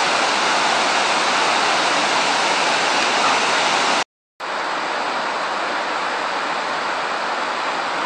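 Steady rush of a waterfall's water pouring and cascading over rocks, broken by a brief moment of dead silence about four seconds in.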